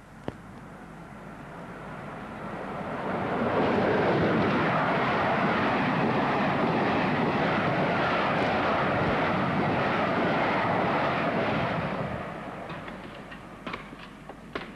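A loud rushing noise that swells over about three seconds, holds steady for about eight, then fades away, as of something passing by.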